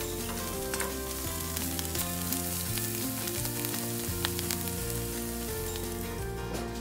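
Cubes of halloumi cheese sizzling in a hot frying pan, a steady hiss with small crackles, over background music.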